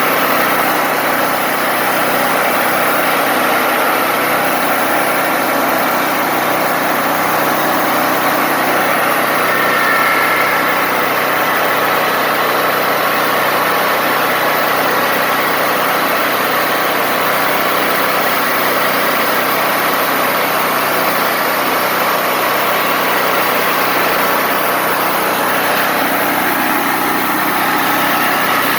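Wood-Mizer LT40 Wide band sawmill running steadily, a continuous engine-driven mechanical drone.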